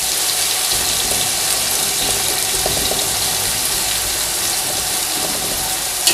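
Sliced onions sizzling steadily in hot oil in an aluminium pot while being stirred with a metal spatula.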